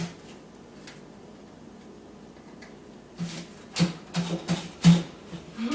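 Cabinet drawers and parts being handled: quiet at first, then from about three seconds in a quick run of knocks and clatters of wood and metal, the loudest just before the end.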